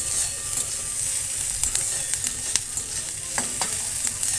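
Chopped onion, green chilli, garlic and ginger sizzling in hot oil in a metal kadai, stirred with a spatula that clicks and scrapes against the pan. A few louder knocks come a little past three seconds in.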